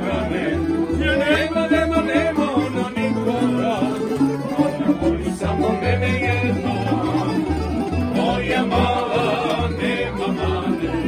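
Small acoustic folk band playing live at close range: accordion, plucked strings and a double bass playing a steady line of low notes beneath.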